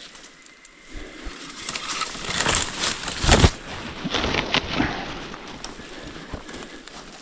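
Footsteps crunching and brush crackling as a person pushes through dense bush, with twigs snapping irregularly. There is one heavy thump about three and a half seconds in.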